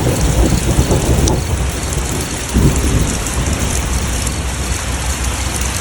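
Heavy rain pouring steadily, with a deep continuous rumble underneath and a brief crack about a second in.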